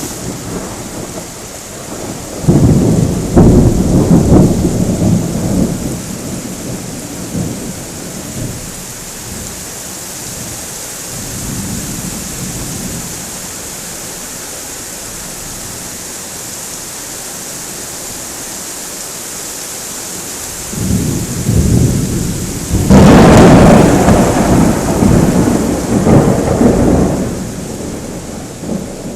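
Thunder rumbling twice, a few seconds in and again, louder and longer, near the end, over the steady hiss of falling rain.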